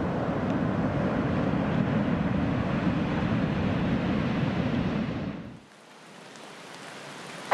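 Ocean surf, a steady wash of breaking waves, that fades out about five and a half seconds in; a fainter hiss then slowly rises.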